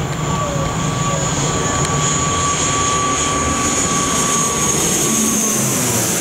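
Twin-engine turboprop airliner on landing approach passing low overhead: steady propeller drone with a high turbine whine, growing louder as it comes in. Near the end the whine and the engine tone drop in pitch as it passes over.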